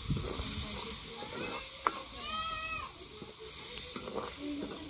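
Fish curry sizzling in a steel kadai as a steel ladle stirs it, with one sharp clink of the ladle against the pan a little under two seconds in.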